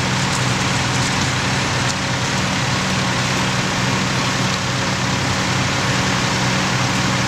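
Fire engine's diesel engine running steadily, an even hum with no change in pitch.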